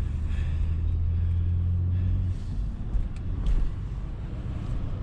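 Car engine and road rumble heard from inside a moving car, with a steady low hum that drops away about two seconds in.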